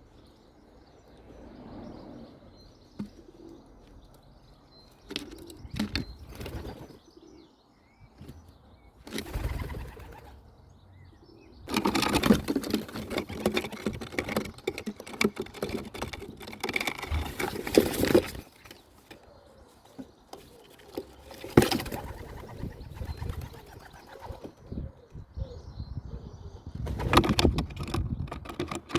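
Pigeons close to the microphone: soft cooing between loud bursts of wing flapping, the longest burst lasting about six seconds midway.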